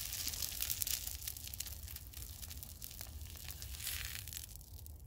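Egg sizzling and crackling in a small frying pan, just after being flipped; the sizzle dies away about four and a half seconds in.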